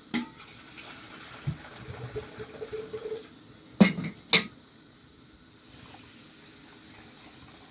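Two sharp knocks about half a second apart near the middle, amid quieter handling sounds.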